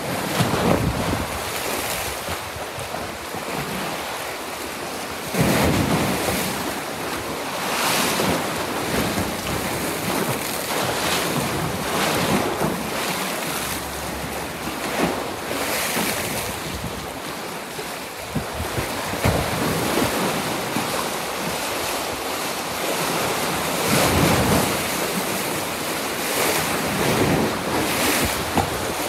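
Choppy sea with small waves breaking and washing in, the sound swelling and easing every few seconds, with gusting wind buffeting the microphone.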